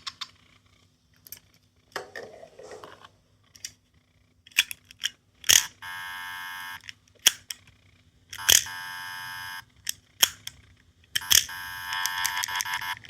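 Button clicks on small electronic sound toys, each press answered by a buzzy electronic tone from a tiny speaker. Two tones are held about a second each, and near the end a faster, pulsing run of electronic sound starts.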